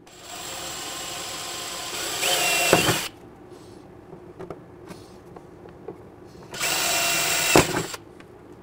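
DeWalt cordless drill boring 1/8-inch pilot holes through the plastic lid of a motorcycle top case. A first run of about three seconds grows louder near its end and winds down with a falling pitch. A second, shorter run of just over a second follows later.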